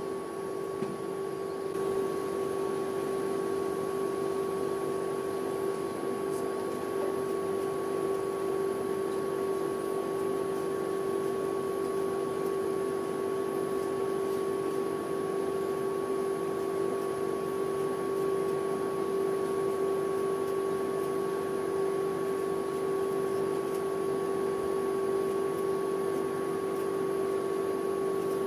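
Steady electric hum of a rolled ice cream machine's refrigeration compressor running to keep the steel cold plate frozen.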